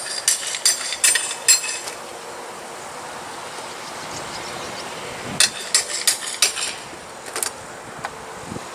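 A hammer striking, in two quick runs of about five blows each with a metallic ring, the second starting about five and a half seconds in.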